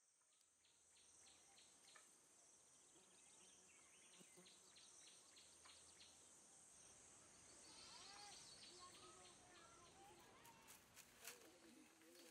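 Faint outdoor dawn ambience, fading in at the start: a steady high insect drone, with birds chirping and trilling in the second half and a few sharp clicks near the end.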